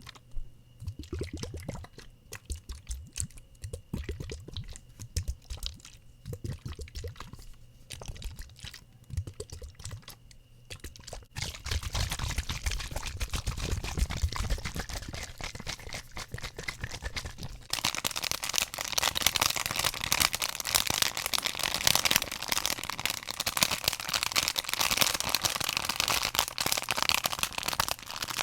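ASMR object triggers: quick irregular tapping on objects, then a continuous crackling, hissing noise that starts about eleven seconds in and gets louder about eighteen seconds in.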